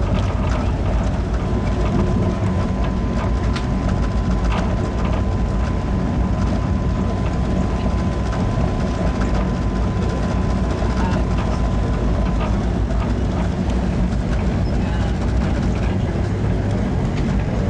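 Steady rumble and rail noise heard from inside an Amtrak passenger car at speed, as a freight train of hopper cars passes close alongside. Scattered clicks from the rails run through it, and a faint thin steady whine sounds from about a second and a half in until about twelve seconds.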